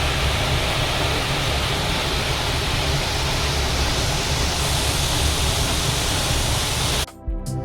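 Waterfall's steady rush of falling water. It cuts off abruptly near the end, and plucked-string music begins.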